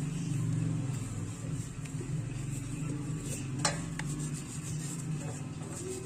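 Bottle brush scrubbing a plastic baby bottle in soapy water, over a steady low mechanical hum, with one sharp click about three and a half seconds in.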